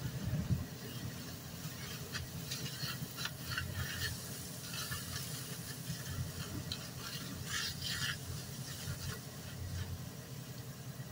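Burning pickup truck fire crackling and popping in irregular short bursts over a low steady rumble.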